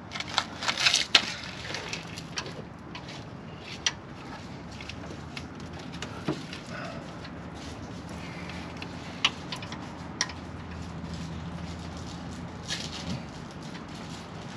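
Wrench and hand work loosening the 11 mm clutch hydraulic line fitting at a Miata's clutch slave cylinder: a burst of rustling and metal clicks in the first second or so, then scattered single clicks every few seconds. A steady low hum runs underneath.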